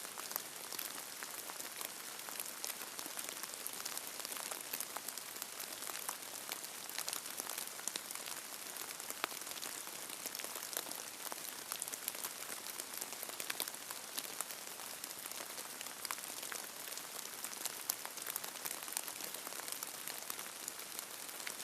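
Steady rain falling: a dense, even hiss peppered with many sharp individual drop ticks.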